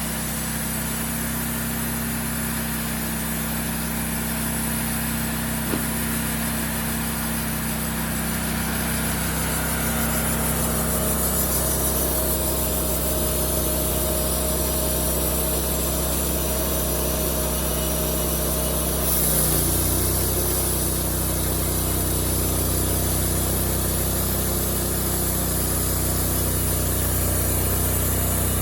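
Wood-Mizer portable bandsaw mill running steadily, its engine under load as the band blade cuts through a large, very hard Osage orange (hedge apple) log. The engine note shifts about two-thirds of the way through.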